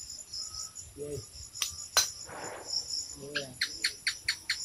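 Steady chorus of chirping insects, broken by two sharp snaps from a long pole cutter working in the branches about two seconds in, then a brief rustle and a quick run of about seven clicks near the end.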